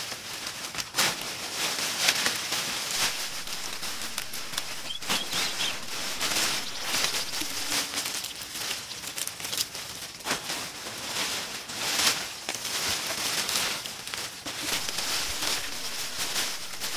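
Rustling and crackling of leafy brush: many short, irregular swishes and scrapes, a few of them louder than the rest.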